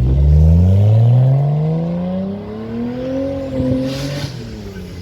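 Car engine accelerating hard from a launch, its note climbing steadily in pitch for about four seconds and fading as the car pulls away. A short hiss comes about four seconds in.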